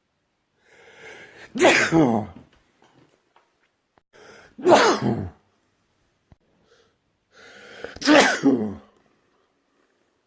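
Three human sneezes a few seconds apart, each preceded by a short, breathy inhale and ending with a voiced part that falls in pitch.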